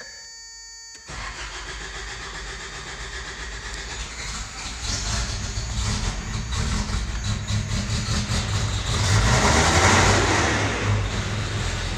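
A 1991 Toyota 4Runner's 22RE four-cylinder engine is cranked by its new starter and catches and runs this time, instead of giving the single click of its intermittent no-start fault. It gets loudest at about nine to ten seconds in, then settles. A steady tone is heard for about the first second, before the cranking.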